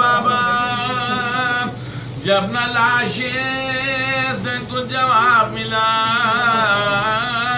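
A man chanting an Urdu marsiya unaccompanied, in long held notes that waver up and down, with a short breath about two seconds in.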